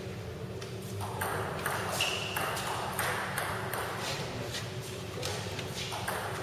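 Table tennis rally: the ball clicking off the paddles and bouncing on the table in quick alternation, a sharp tap roughly every half second. A short high squeak comes about two seconds in.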